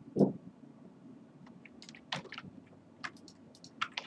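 Computer mouse clicking now and then as links and the address bar are selected, over a faint steady low hum, with one louder dull thump about a quarter-second in.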